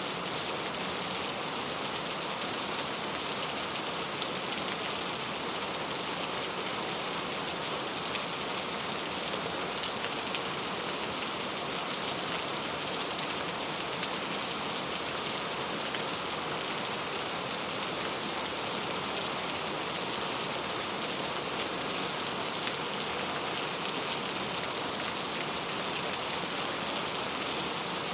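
Steady rain falling on a road: an even, unbroken hiss flecked with the ticks of individual drops, with no thunder.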